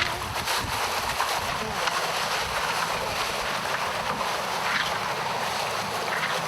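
Steady wind on the microphone mixed with the rush of water, as heard aboard a boat under way.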